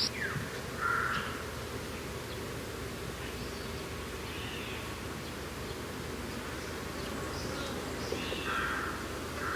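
Steady mountain wind with a few short bird calls over it: one about a second in, a fainter one around the middle, and two together near the end.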